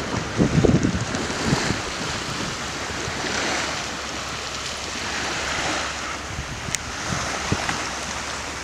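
Sea waves washing steadily, with wind buffeting the microphone in the first second or so.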